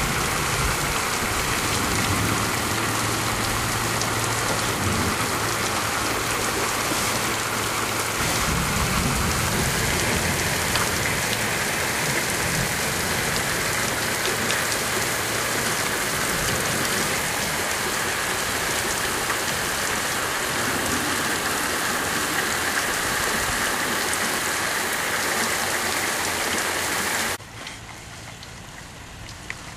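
Heavy rain falling steadily, a loud even hiss that cuts off suddenly near the end.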